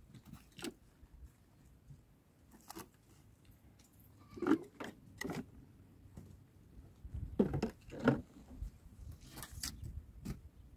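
Dry branches of firewood being broken and handled: a scattering of sharp cracks, snaps and knocks, loudest about halfway through and again a few seconds later.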